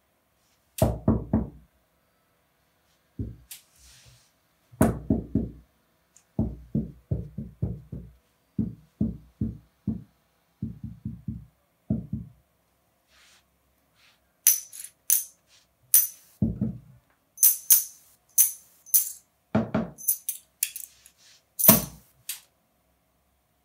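Knuckles knocking on a cloth-covered table in quick dull raps, in bursts of two to five, then metal coins clinking against each other in the hand, with a few heavier knocks as they are brought down on the table near the end.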